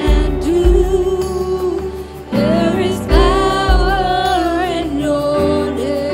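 Gospel worship song: singing over instrumental backing with deep, pulsing bass notes.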